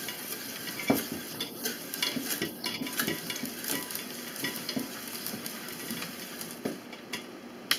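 Wooden pestle scraping and rubbing around inside a perforated metal cone sieve, squishing pokeberries through the holes: a run of irregular scrapes, clicks and wet squelches.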